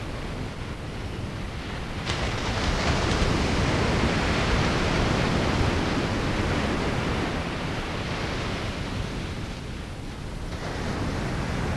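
Ocean surf washing onto a beach: a steady rush that swells about two seconds in, eases after a while, and builds again near the end.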